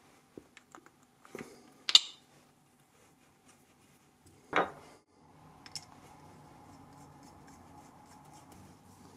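Small metal parts and a turned handle being handled on a wooden workbench: a few light clicks, a sharp click about two seconds in and a knock a little past halfway through, then a faint steady rubbing as a metal tool shaft is worked into the handle.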